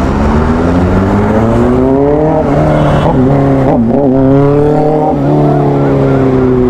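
Motorcycle engine accelerating hard, its note climbing and dropping briefly twice as it shifts up, about two and a half and four seconds in, then holding and slowly falling as it eases off.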